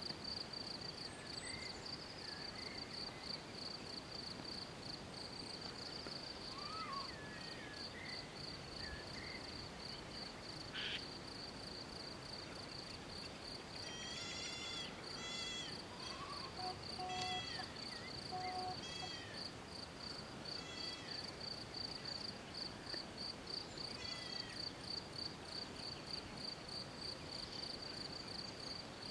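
Insects chirring steadily in a high, rapidly pulsing note, with scattered bird chirps and a short run of calls about halfway through.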